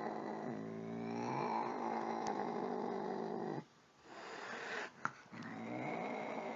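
An angry cat growling in a long, low, drawn-out yowl that stops abruptly about three and a half seconds in, followed by a quieter stretch with a single sharp click.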